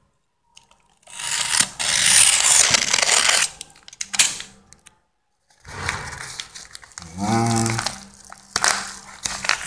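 Yellow padded mailer envelope being cut and torn open by hand, in bursts of paper tearing and crinkling with short pauses between. A brief low hum sounds near the end.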